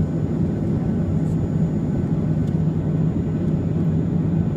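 Boeing 737-300's CFM56-3 jet engines running at a steady idle, heard inside the cabin: an even low rumble with a faint, steady high whine.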